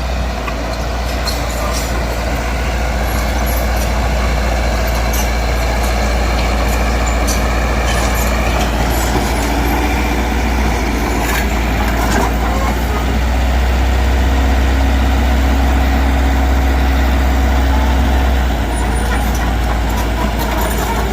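Diesel engine of heavy earthmoving machinery running with a steady low drone. It grows louder for several seconds past the middle, then eases back.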